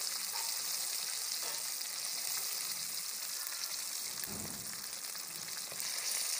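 Batter-coated chicken pieces deep-frying in hot oil in a karahi: a steady sizzle with fine crackling.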